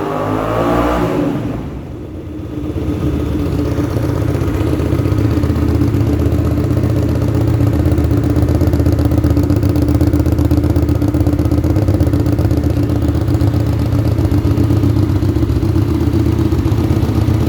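Kasinski Mirage 250 EFi's V-twin engine running through a Roncar Scorpion semi-straight-through slip-on muffler with internal packing. The revs fall back in the first two seconds, then the engine holds a steady, louder speed. The sound echoes in a closed shed.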